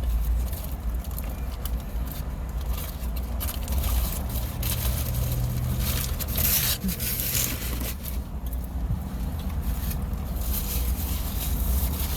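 Highway traffic passing, heard from inside a car: a steady low rumble with vehicles swishing by every few seconds, the loudest pass about six seconds in.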